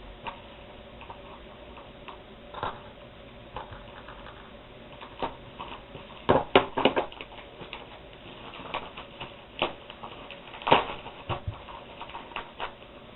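A shipping box being opened by hand and its packing handled: irregular rustles, scrapes and knocks. The loudest come in a cluster about six and a half seconds in and again near eleven seconds.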